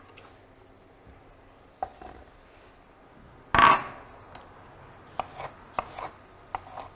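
Kitchen knife chopping McIntosh apples on a wooden cutting board: a few scattered knocks of the blade on the board, one louder chop about halfway through, then a quick run of about five knocks near the end.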